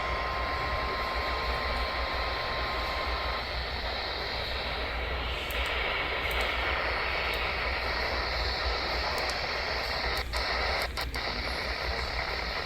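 NOAA Weather Radio 1050 Hz warning alarm tone, a thin steady tone faint under heavy receiver static, cutting off about three and a half seconds in. After that, weather radio static hiss, with a few crackles near the end.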